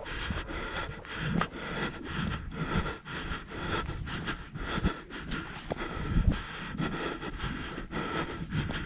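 A hiker breathing hard while climbing, with footsteps and gear rubbing as irregular knocks, and wind buffeting the microphone.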